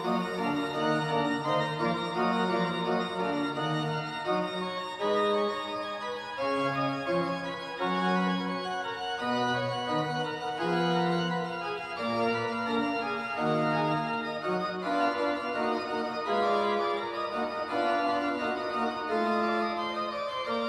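Church pipe organ playing a polyphonic piece, several lines of held notes moving at once, changing about every half second to a second.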